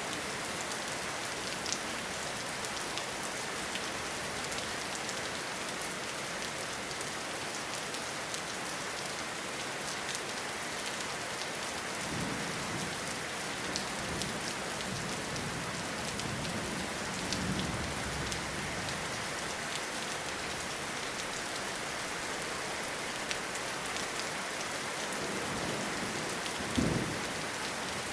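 Steady rain falling in a forest, with soft low rumbles of distant thunder midway and a louder thunder clap near the end.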